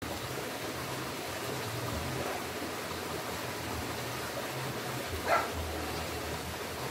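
A dog barks once about five seconds in, over a steady rushing noise and a low rumble.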